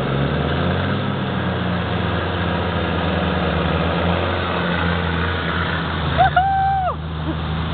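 Off-road SUV engine running steadily at low revs as the vehicle works back and forth on a muddy bank. A short held call cuts in briefly about six seconds in.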